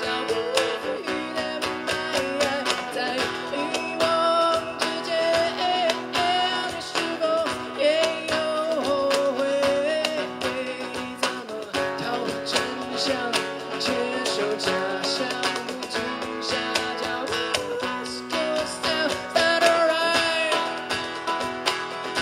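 Live band music: strummed guitar and drums keeping a steady rhythm under a wavering melody line.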